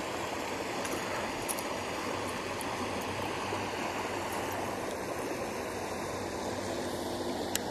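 Creek water flowing, a steady rush with no change, and a couple of faint clicks.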